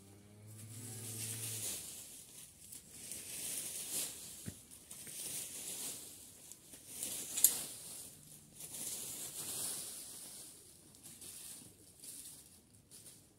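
Garden rake dragged through dry fallen leaves on bare soil, a rustling swish every second or two, with one sharp click about halfway through.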